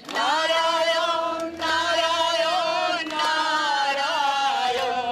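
A group of women singing a Bengali devotional chant to Narayan together, in long held phrases with brief breaks for breath about one and a half and three seconds in.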